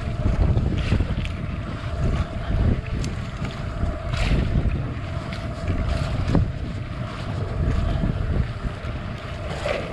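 Wind buffeting the microphone over choppy sea, with water washing against the outrigger boat and its floats. A faint steady hum and a few sharp ticks sit underneath.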